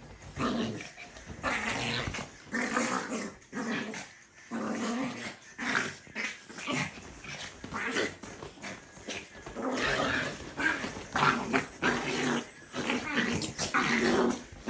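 Chihuahuas fighting, growling and snarling at each other in an unbroken run of short, throaty rumbles broken by sharper noisy bursts.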